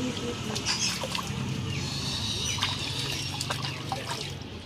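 Water in a bucket being splashed and dribbled by hand over a young pigeon as it is bathed, with irregular small splashes and trickles.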